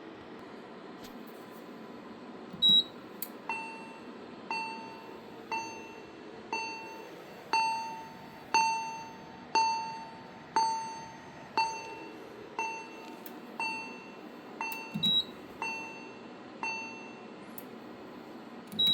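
Fire alarm voice-evacuation alert signal played between announcements: a bell-like chime struck about once a second, each stroke ringing out and fading, fourteen strokes in a row. A short sharp high beep with a thump sounds just before the chimes begin and again near their end.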